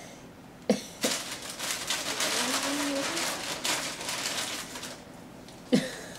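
A baby's breathy vocal noises lasting a few seconds, with a short rising-and-falling coo in the middle. A sharp knock on the plastic high-chair tray comes about a second in, and another comes near the end.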